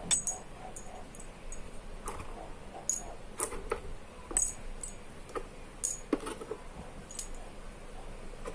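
Small steel screwdriver bits clinking against each other and their case as they are handled: about a dozen irregular clicks, each with a short bright ring.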